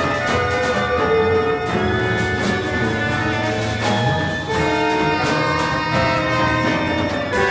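Live ensemble of clarinet, trumpet, tenor saxophone, vibraphone, guitars, double basses and drum kit playing together: layered held notes shifting every second or so, with scattered drum and cymbal strokes.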